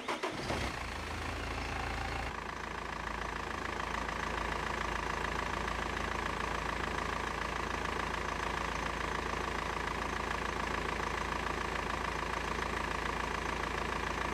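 BMW E46 engine starting and catching, then settling into a steady idle about two seconds in.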